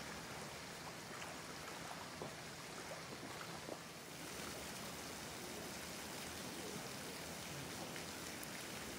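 Steady hiss of running water, with a few faint ticks and drips.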